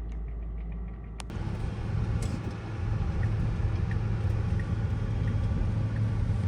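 Road and tyre noise inside the cabin of a 2016 Tesla Model X on the move: a steady low hum that starts after a cut about a second in. A soft tick repeats about every two-thirds of a second.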